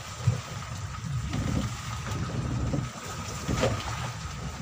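Rough-weather noise aboard a fishing boat at sea: wind, rain and waves against the hull over a low rumble, with a couple of sharp knocks.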